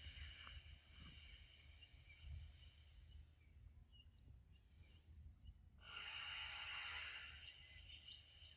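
Faint outdoor ambience: a steady high-pitched insect drone over a low rumble. The drone thins out in the middle and swells loudly for about a second and a half around six seconds in.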